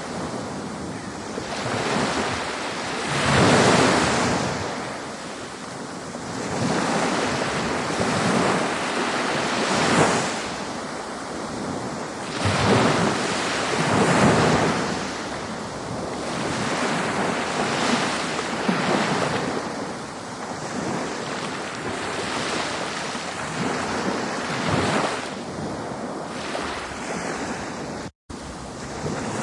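Ocean waves breaking and washing ashore, a continuous rush of surf that swells every few seconds. The sound cuts out for a split second near the end.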